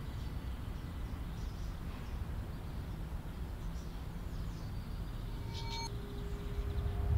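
A steady low rumbling noise. About five and a half seconds in, a short high whistle-like tone sounds and a steady mid-pitched hum begins and carries on.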